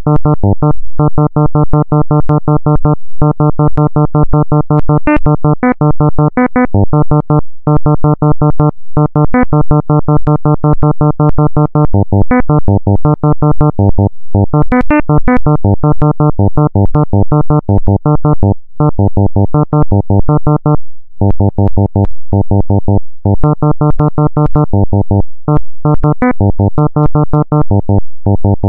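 Data sonification made with the R package sonify: a fast, even run of short synthesized keyboard-like notes, about five a second, one per month of nuclear testing. Most notes sit at one low pitch, with a few short higher notes and brief gaps of silence; a higher tone marks a country further down the list (USA lowest).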